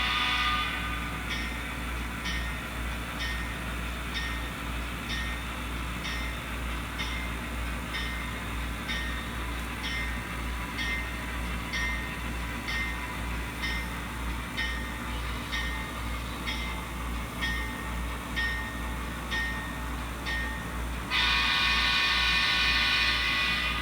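Sound-equipped model CSX diesel locomotive: the horn sounds, then cuts to the bell ringing steadily, about one and a half to two strikes a second, over a low diesel rumble. The horn comes back in about three seconds before the end.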